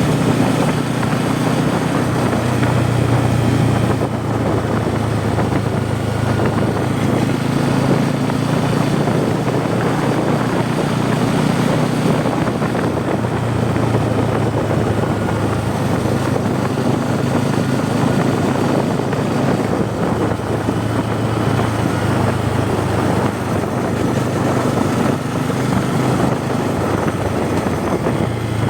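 Bajaj Pulsar N250's single-cylinder engine and exhaust running steadily while the bike is ridden at a cruise, its pitch shifting a little with the throttle.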